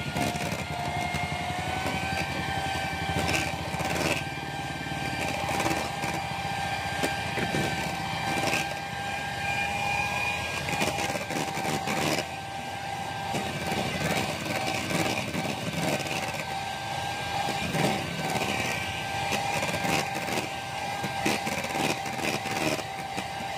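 Electric mixer running at a steady whine while it whips pancake batter, its pitch stepping up slightly about two seconds in. Irregular clicks and knocks sound over it.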